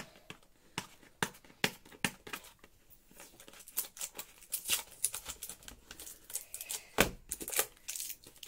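Clear plastic security seal being picked at and peeled off a cardboard retail box: irregular plastic crinkles and clicks, with a sharper snap about seven seconds in.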